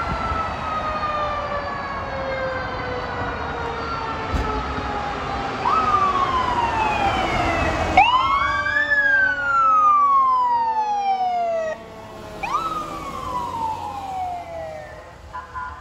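Fire truck sirens: a long wail falling slowly in pitch, overlaid by three siren sweeps that each rise quickly and then fall away slowly.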